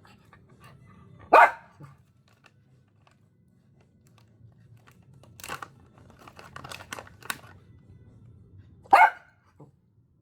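A pet dog barks twice, once about a second in and again near the end, with a run of quick clicks in between.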